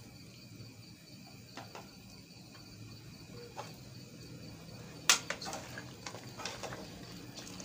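A metal spoon stirring soup in an aluminium pot, knocking against the pot about five seconds in with one sharp clink and a few lighter ones after it. A low steady hum runs underneath.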